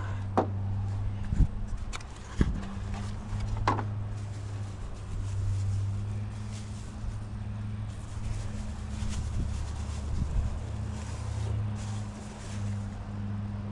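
Steady low mechanical hum, with several sharp knocks and clicks in the first four seconds as mass air flow sensor parts are handled.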